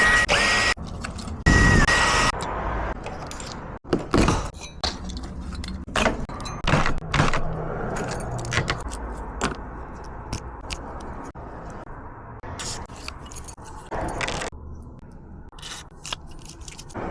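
Keys jangling and metal clicking and scraping in an irregular run of short rattles, as a locksmith handles keys and tools at a door lock.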